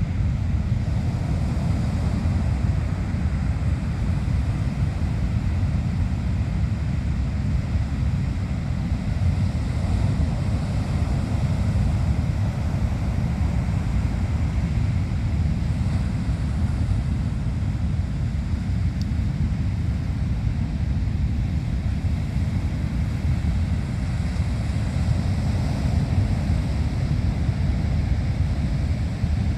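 Ocean surf on the North Pacific coast, a steady wash of breaking waves, with wind rumbling on the microphone.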